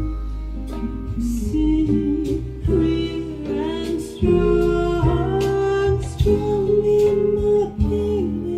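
Recorded pop music played back through loudspeakers: acoustic guitar strumming under a steady bass, with a voice holding long notes without clear words.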